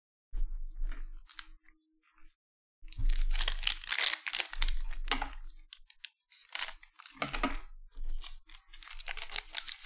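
Foil wrapper of a Panini Select basketball card pack crinkling and tearing as the pack is handled and ripped open, in several bursts of rustling, loudest about three to five seconds in.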